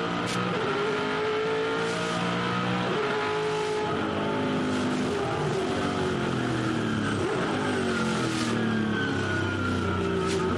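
Ford V8 Supercar's V8 engine heard from inside the cockpit under full race load. It revs high through an upshift early on, then drops in pitch through a run of quick downshifts under braking, and picks up again near the end.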